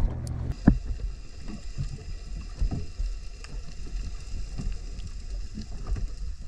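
Muffled underwater sound from a submerged camera: water sloshing against it, with irregular dull knocks.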